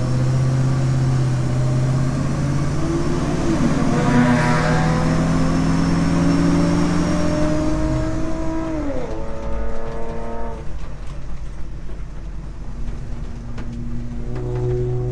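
Old car hauler truck's engine heard from inside the cab, its pitch rising steadily as it pulls up through a gear. About nine seconds in the pitch drops sharply as it lets off and slows, then it begins to climb again near the end.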